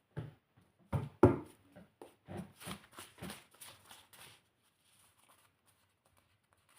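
Tarot cards handled on a table: a few sharp slaps as cards are put down, then a quicker run of softer taps and rustles.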